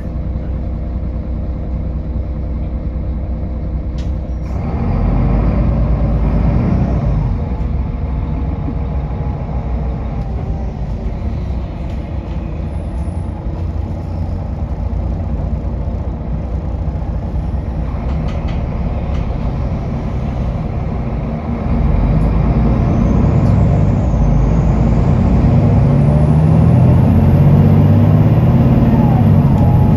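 Solaris Urbino 18 articulated bus heard from inside the passenger cabin: engine and drivetrain running, with a sharp click about four seconds in, after which the engine grows louder as the bus pulls away. About twenty-two seconds in it grows louder again as the engine works harder under acceleration.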